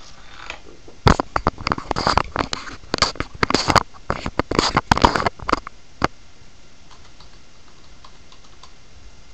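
Typing on a computer keyboard: a quick run of keystrokes from about a second in until about five and a half seconds, with one last key pressed a moment later.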